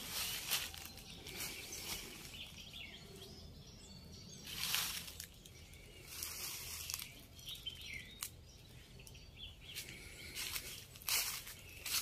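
Outdoor ambience with birds chirping faintly, broken a few times by short rustling noises.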